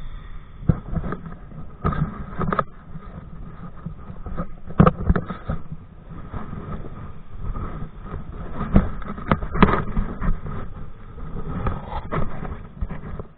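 Wind rumbling on a body-worn camera's microphone aboard a kite-pulled kayak, broken by irregular sharp slaps and knocks of the water and hull.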